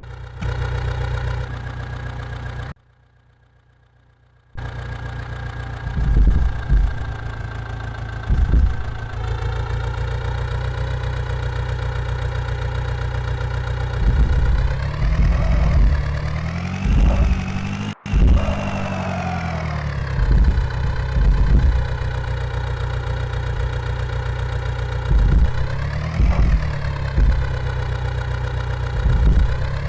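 A vehicle engine running steadily at idle, revving up and down a few times, with low knocks recurring; it drops out for about two seconds near the start.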